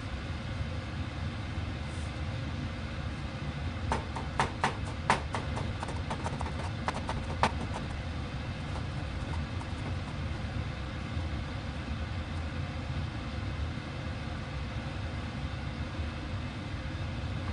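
Kitchen knife chopping greens on a cutting board: a quick run of about a dozen sharp knocks between about four and seven seconds in, over a steady low hum.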